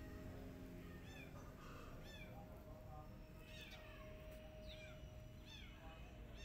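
Kitten meowing over and over, short thin high-pitched mews about once a second.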